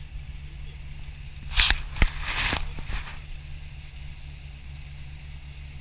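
GAZ-66 truck engine idling steadily. About a second and a half in, a brief burst of crackling rustle with two sharp knocks is the loudest sound.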